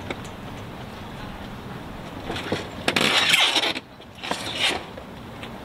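Covered inflatable dinghy scraping and rubbing against the dock and the boat's hull as it is lifted aboard. It is loudest in two rushes of scraping, a long one a little before halfway and a short one about a second later.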